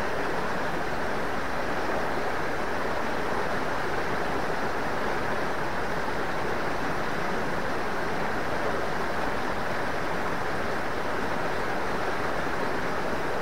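Steady rush of a small, fast-flowing river tumbling over rocks, unbroken and even throughout.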